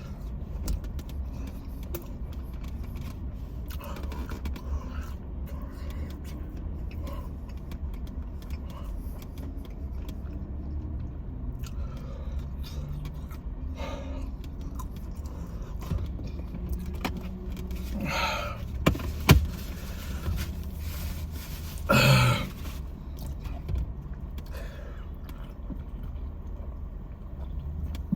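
Someone eating and handling food and its wrapping inside a car, with small rustles, scrapes and clicks over a steady low cabin rumble. Near the end come a few louder noises: a sharp click and a short burst of breath or voice.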